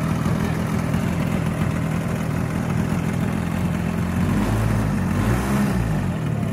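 DA-200 four-cylinder boxer two-stroke engine of a 40%-scale RC aerobatic plane idling on the ground, propeller turning. Its pitch briefly wavers up and down about five seconds in.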